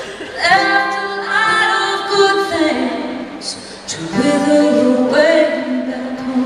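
Several voices, women's among them, singing a slow phrase in harmony over a held low note, pausing briefly about three and a half seconds in before the next phrase.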